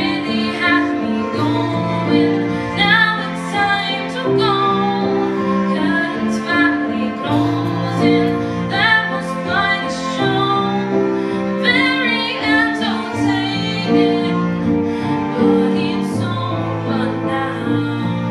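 A woman singing a slow ballad live into a microphone, accompanied by keyboard and bowed strings (violins and cello) holding long notes beneath the melody.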